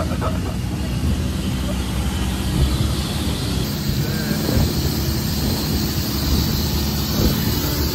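Longtail boat engine running steadily at speed, with the rush of water from the wake and wind noise on the microphone.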